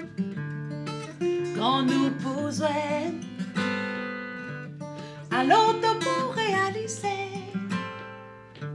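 Acoustic guitar playing chords, with a voice singing two long, wavering phrases over it, the first a little after the start and the second about halfway through.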